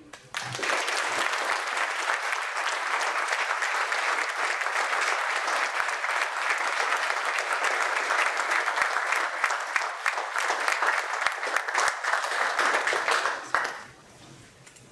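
Audience applauding, starting just after the introduction ends and dying away about a second before the end.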